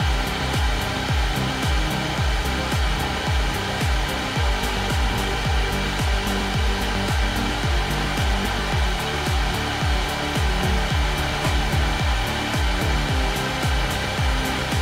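Hot-air rework gun blowing steadily over a laptop GPU die, heating it to about 150 °C, below the melting point of lead-free solder balls. Background music with a steady beat runs underneath.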